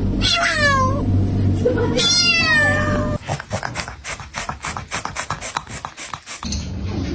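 Domestic cat giving two long meows, each falling in pitch, over a low steady hum. Then a fast run of short clicking sounds, about four or five a second.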